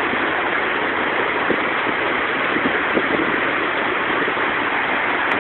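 Heavy downpour of rain: a steady, dense hiss, with a few faint taps.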